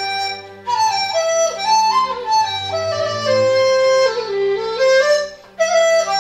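Dizi, the Chinese bamboo transverse flute, playing a melody of held, stepped notes over a low sustained accompaniment. The tune breaks off briefly twice between phrases, about half a second in and near the end, and sinks to its lowest notes around four seconds in before climbing again.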